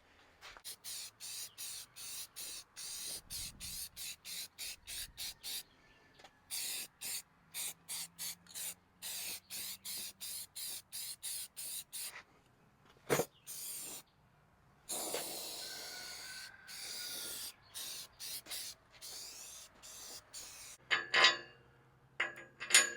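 Aerosol spray paint can hissing in many short, quick bursts, about three a second, then one longer spray lasting a couple of seconds. A single sharp knock falls about midway, and there is some light clinking near the end.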